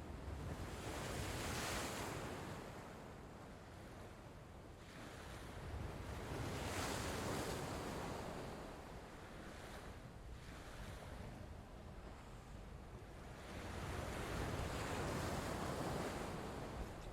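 Sea waves washing up on the shore in three slow surges about six seconds apart, each swelling and fading, with wind blowing over the microphone throughout.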